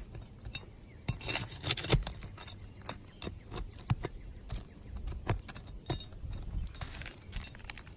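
Flat pry bar prying roofing nails out from under asphalt shingles: irregular sharp clicks and scrapes of metal on nails and shingle grit, thickest about a second or two in.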